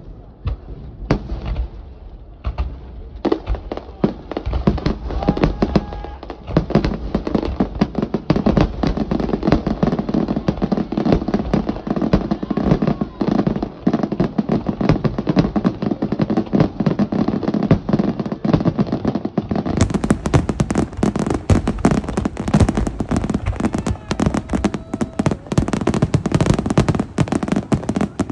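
Aerial fireworks bursting. There are a few separate bangs at first, then from about three and a half seconds in a dense, rapid-fire barrage of bangs and crackling that keeps on without a break.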